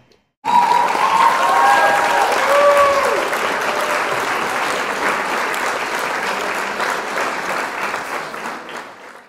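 Crowd applause with a few whistles in the first three seconds. It starts abruptly and fades out near the end.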